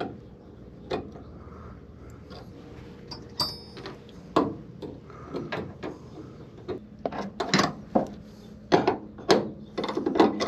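Wrench tightening the bolts that hold the throttle cables: irregular metal clicks and knocks of the tool on the fittings, coming closer together in the last few seconds.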